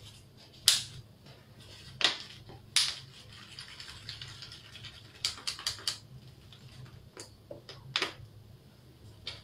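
Thin plastic water bottle being gripped and swirled, its walls giving about ten sharp, irregular clicks and crackles, with a quick run of five a little past halfway.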